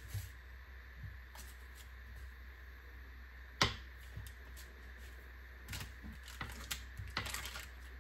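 Scattered light taps and clicks of a knife cutting through a block of butter onto a granite countertop, with pieces set into a ceramic mug. One sharper knock comes about three and a half seconds in, and a quick run of taps near the end, over a steady low hum.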